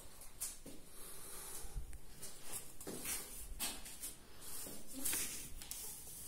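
Handling noise from a handheld phone being swung about: irregular soft rustling and hissing, with two dull low thumps.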